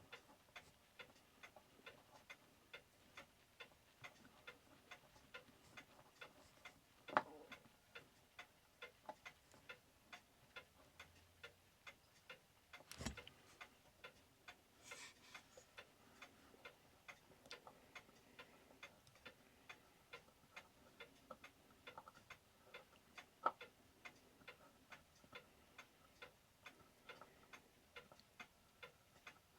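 Herschede pendulum clock movement ticking steadily and quietly. Three louder sharp knocks, from handling screws and a screwdriver in the case, fall a few seconds apart over the ticking.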